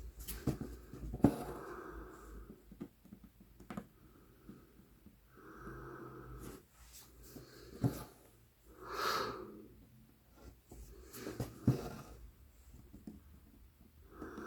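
Embroidery floss drawn through Aida cloth, several rasping pulls a few seconds apart, with a few sharp clicks of the needle.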